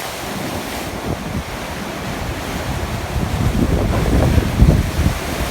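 Strong wind buffeting the microphone over the noise of sea waves at the shore. The low gusty rumble grows heavier about halfway through.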